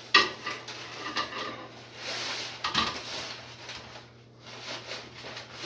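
Kitchen clatter of dishes and utensils being handled while food is served, with a sharp knock just after the start, over a low steady hum.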